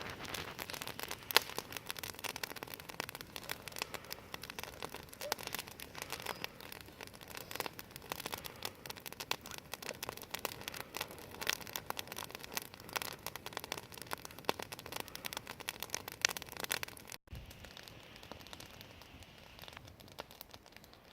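Small campfire of damp twigs crackling, a dense, steady run of sharp snaps and pops. A sudden cut about 17 seconds in leaves a quieter, even hiss.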